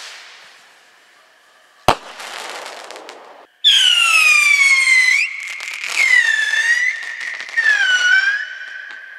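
Black Cat Galaxy Pack pocket rockets going off: a sharp bang about two seconds in with a hissing, crackling tail, then loud shrieking whistles, three in a row, each falling in pitch, over a steady high whistle.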